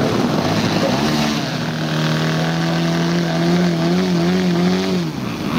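Radio-controlled model aircraft engine running with a steady drone that wavers slightly, then drops in pitch and dies away near the end.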